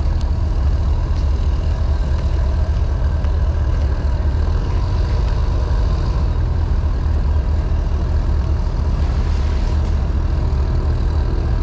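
Small vehicle driving steadily with a continuous low rumble while towing a handcart with steel wheels over asphalt.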